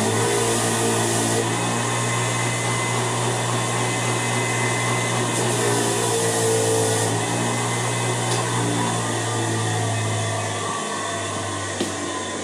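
Electric wire wheel running steadily with a low motor hum, scrubbing rust off the head of a 4-pound hammer; a scratchy hiss swells and fades as the head is pressed to the wheel.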